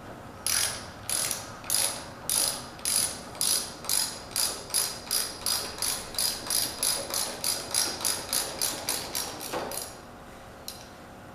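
Socket ratchet wrench clicking as it is worked back and forth on a bolt, the strokes quickening from under two a second to about three a second, then stopping about ten seconds in; one lone click follows near the end.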